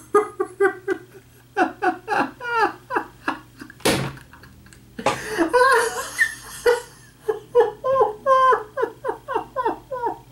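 A man laughing hard in rapid repeated bursts, with one sharp smack about four seconds in.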